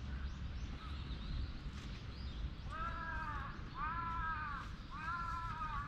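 A crow cawing three times in a row, each caw a drawn-out call of under a second.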